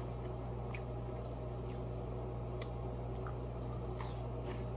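Steady low room hum with a few faint scattered clicks, and a crunch about four seconds in as a cheese curl is bitten.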